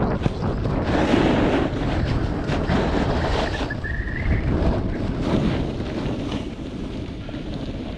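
Wind buffeting the microphone while a snowboard slides and scrapes over chopped, packed snow, a continuous rushing noise with short scraping bursts as the edges bite.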